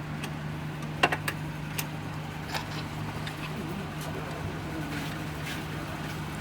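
Car-repair workshop ambience: a steady low hum with scattered sharp clicks and knocks, the loudest about a second in.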